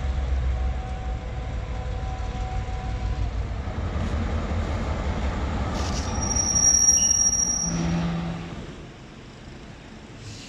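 GMCU-15 diesel-electric locomotive running as it moves slowly on the line, with a deep steady engine rumble. A loud high-pitched squeal from the wheels on the rails comes in about six seconds in and lasts under two seconds; from about eight and a half seconds on only a much quieter steady background remains.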